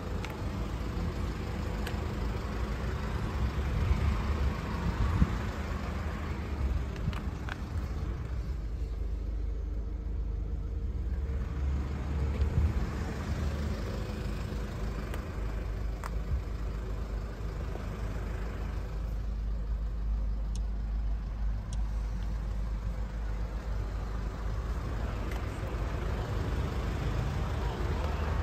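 Steady low rumble of a stationary car running, with a rushing hiss that swells and fades several times and a few light clicks.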